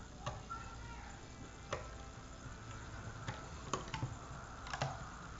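A handful of small, sharp clicks spaced irregularly a second or so apart: a plastic hook and rubber bands clicking against the pegs of a Rainbow Loom as the bands are hooked and pulled along the last row.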